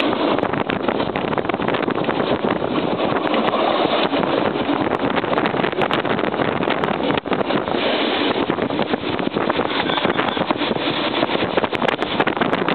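Running noise of a Circumetnea littorina diesel railcar on the move, heard at an open window: a steady rush of wind over the microphone mixed with the train's rattle and many small clicks from the wheels and running gear.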